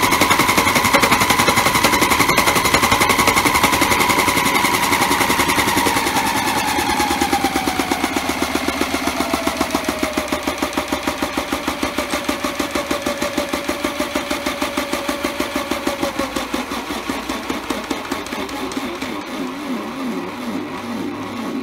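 Modified toy washing machine's small motor whining and its drum knocking rapidly as it spins an unbalanced load of rags. About six seconds in, the whine begins to fall in pitch and the spin winds down, the knocking growing slower and quieter until the whine fades near the end.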